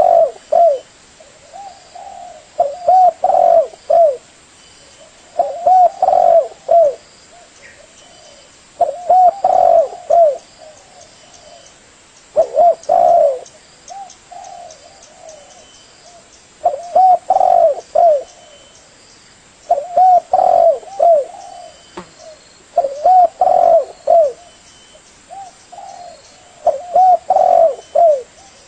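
Spotted dove (tekukur) cooing: loud, repeated phrases of a few short coos, one phrase about every three to four seconds with pauses between.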